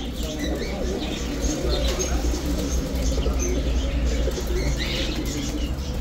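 A loft full of domestic pigeons cooing together, with wings flapping among them, over a steady low hum.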